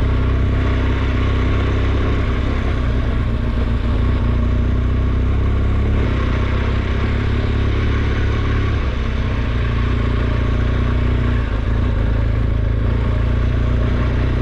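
Adventure motorcycle engine running steadily at low speed on a rough, rocky dirt trail.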